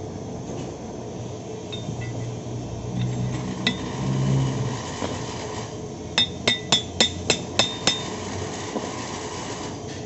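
A hammer tapping a pin down into a backhoe planetary gear carrier, metal on metal with a ringing clink. There is one strike a little past a third of the way in, then a quick run of eight strikes, about four to five a second. A steady low workshop hum runs underneath.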